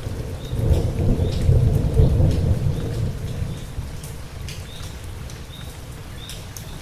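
Steady rain with scattered sharp drips, and a low rumble of thunder that swells about a second in and dies away by about three seconds.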